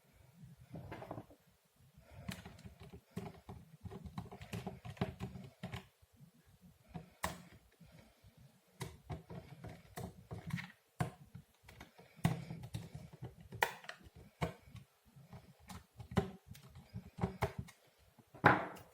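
Irregular clicks, taps and knocks of hands working on a laptop, with a few louder snaps, the last and loudest near the end.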